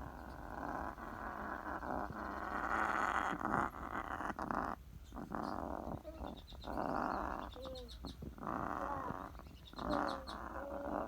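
Pet parrots calling: harsh, noisy squawks in stretches of a second or two, with short whistled notes and rapid high chirps between them.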